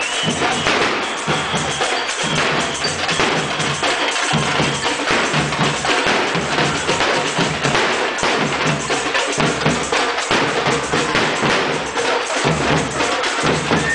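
Procession drums beating a steady marching rhythm, bass drum and snare, amid a loud, dense din.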